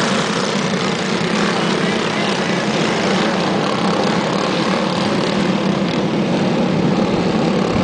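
A pack of dirt-track racing karts with Briggs & Stratton Animal single-cylinder four-stroke engines, running together in a steady, unbroken drone.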